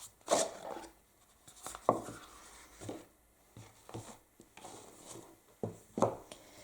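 Handling noises of an oracle card deck and its cardboard box: a series of short rustles and taps, about five, as the cards are taken out and set up.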